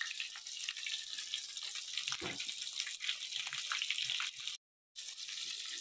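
Chicken feet deep-frying in hot oil in a kadai: a steady sizzle with small crackles. The sound cuts out for a split second about four and a half seconds in.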